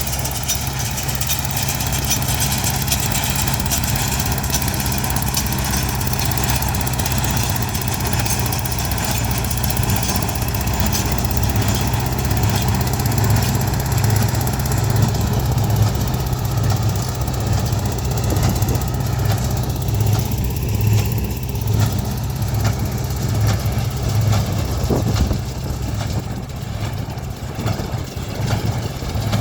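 John Deere 60 two-cylinder gas tractor and a Freeman wire-tie baler with its Wisconsin engine running together at work: a steady, loud engine drone with a regular pulsing beat.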